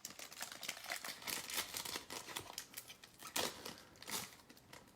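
A trading-card pack wrapper crinkling and being torn open: a dense run of small crackles, with a few louder ones.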